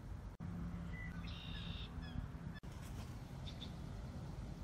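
Birds calling: a harsh call of under a second about a second in, and short chirps a little after and again past the middle, over a faint low rumble.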